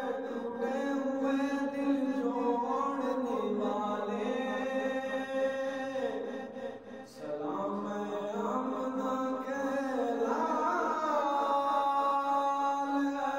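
A young man's solo voice chanting a melodic religious recitation in long held, ornamented phrases, with a short pause for breath about seven seconds in.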